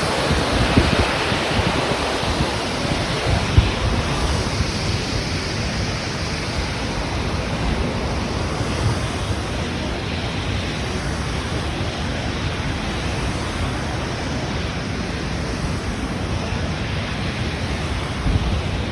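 Steady rushing noise with wind buffeting the microphone in low, ragged rumbles, a little stronger in the first few seconds.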